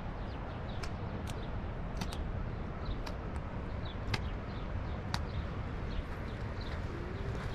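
Steady wind rumble on the microphone, with short faint bird chirps and a few sharp clicks or taps scattered through.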